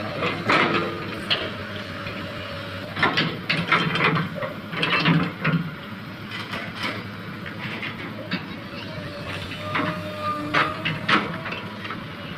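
An engine running steadily, with repeated irregular clanks and knocks in bunches over it and indistinct voices.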